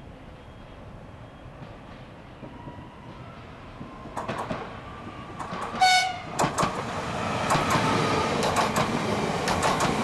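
Koleje Śląskie Pesa Elf electric multiple unit approaching and passing close. It gives one short horn blast just before six seconds in, then its running noise grows louder, with repeated wheel clicks over the rail joints.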